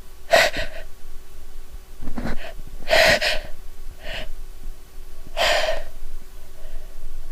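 A woman's sharp, gasping breaths, about five of them a second or so apart, the loudest about three seconds in: the hitching build-up to a sneeze brought on by sniffing a soap.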